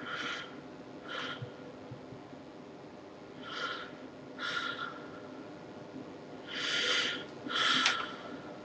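A man breathing heavily and noisily in and out close to the microphone: three breaths, the last one loudest.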